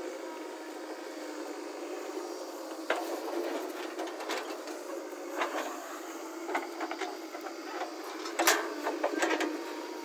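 JCB 3DX backhoe loader's diesel engine running steadily under work, with several sharp knocks and clanks as the bucket works the soil heap; the loudest knock comes about eight and a half seconds in.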